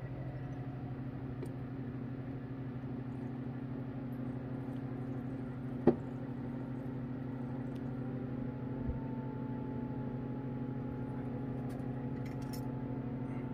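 Vacuum pump running with a steady hum, pulling liquid through a Büchner funnel filter. A single sharp click comes about six seconds in, and from about eight seconds a faint thin whistle joins the hum.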